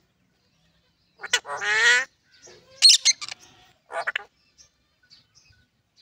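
Green parrot calling: a long squawk with a slowly rising pitch about a second in, then a shorter, higher call near three seconds and a brief call near four seconds.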